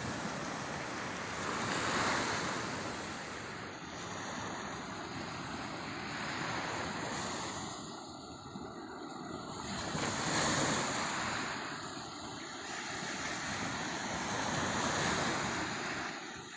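Ocean surf: waves breaking and washing in, the rush swelling and easing several times.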